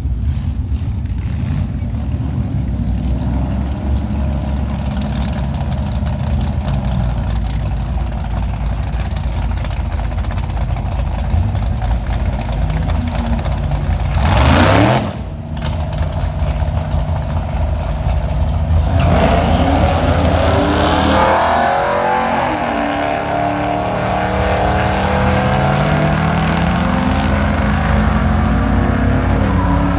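Car engines running steadily, with a vehicle passing close by about halfway through, then engines accelerating with rising pitch in the second half.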